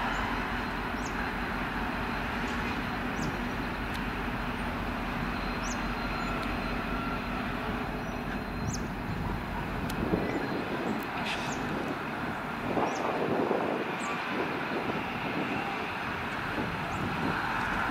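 V/Line N class diesel-electric locomotive running steadily as it hauls passenger carriages slowly through the yard. In the second half the rumble of the train's wheels on the track grows heavier and more uneven.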